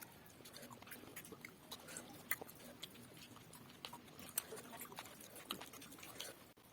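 Faint chewing and eating sounds, with scattered small clicks.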